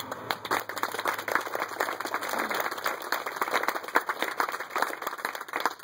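Audience applauding with many hands clapping. It starts just after the close of a speech and thins out near the end.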